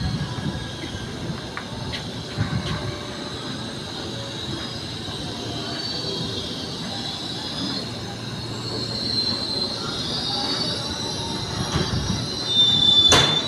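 Ex–Tokyo Metro 6000 series electric commuter train rolling slowly in along the platform while braking, its wheels squealing in thin, wavering high tones over a low rumble. A brief loud burst of noise comes near the end as it draws up.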